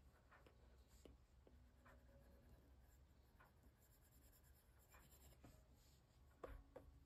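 Near silence, with faint scattered taps and strokes of a stylus tip on an iPad's glass screen while drawing; a slightly louder tap comes about six and a half seconds in.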